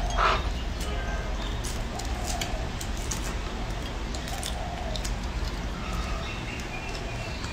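Scattered small snaps and crackles of lychee shells being peeled by hand, over a low steady hum. A short rising squeak comes right at the start, and faint short chirps come near the end.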